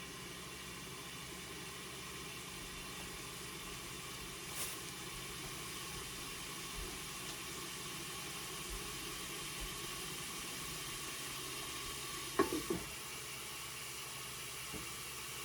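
Shrimp frying in oil in a pan, a steady sizzle. A brief clatter of knocks comes about twelve seconds in.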